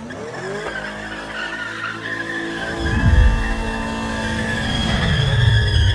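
Chevrolet Corvette C8 Stingray's mid-mounted V8 revving and running hard, rising in pitch in the first second and swelling louder about three seconds in and again near the end.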